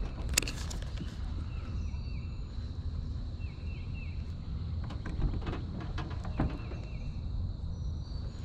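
Outdoor pond ambience: a songbird repeats a short chirping phrase three times over a steady low wind rumble and a faint steady high insect tone. A few sharp clicks and knocks come from handling a baitcasting reel.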